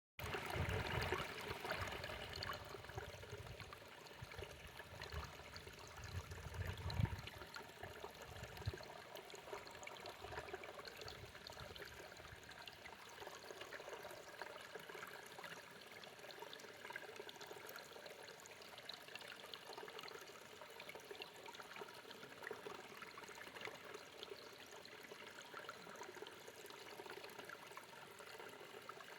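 Mountain stream flowing and trickling steadily. Low rumbles come and go over the first nine seconds or so, then stop.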